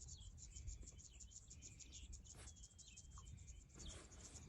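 Faint, rapid high-pitched insect chirping, about eight pulses a second, with a few short bird chirps over a low rumble.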